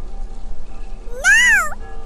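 A cat's meow: one loud call that rises and falls in pitch, about half a second long, about a second and a half in, over steady background music.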